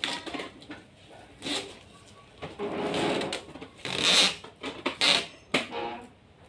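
Irregular rustling, scraping and knocking of a coil of white plastic hose being unwound and handled, with a few sharp clicks, the loudest burst about four seconds in.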